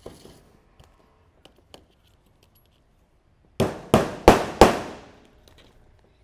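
Hammer blows: four sharp strikes in quick succession, about three a second, each ringing out briefly. Fainter handling clicks come before them.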